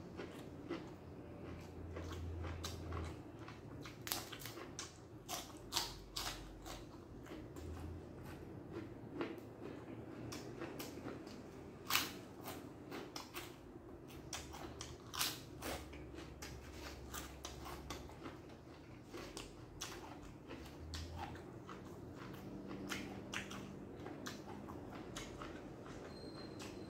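A person chewing crunchy food such as pork rinds and raw vegetables, with many sharp, irregular crunches throughout.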